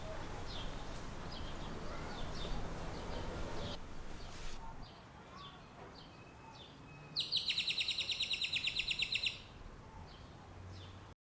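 Birds chirping in short high calls over a steady outdoor hiss. About seven seconds in comes a loud, rapid trill of roughly ten notes a second lasting about two seconds, and the sound cuts off abruptly just before the end.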